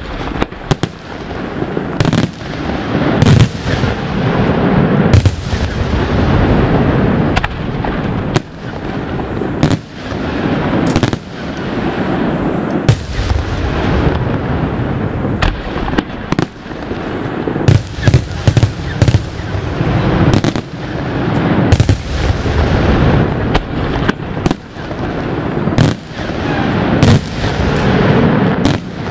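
Aerial firework shells bursting one after another in a continuous barrage: sharp bangs about every second over a dense, unbroken noise of explosions.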